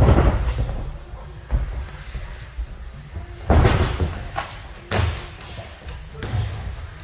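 Boxing sparring: gloved punches landing and boxers' feet hitting the ring canvas, heard as irregular heavy thuds and slaps every second or two, the loudest at the very start during a clinch.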